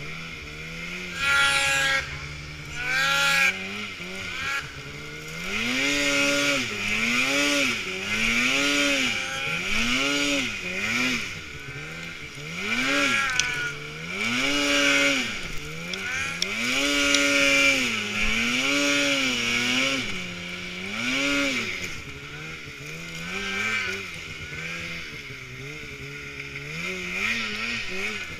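Snowmobile engine revving up and down in quick repeated throttle pulses, about one a second, as the sled works through deep snow. Near the end it settles into lower, smaller revs.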